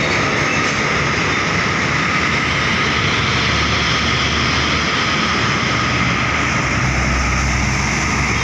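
Heavy road traffic, buses among it, passing in a steady loud roar, with a deeper engine rumble swelling near the end.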